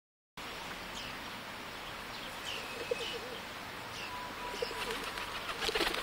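Rock pigeons cooing low among short high peeps from mallard ducklings. A brief clatter of wing flaps comes near the end.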